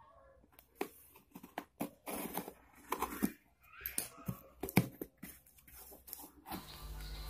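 Packing tape being peeled and torn off a cardboard box, with crackling and rustling of the cardboard as the flaps are pulled open near the end, over a low rumble.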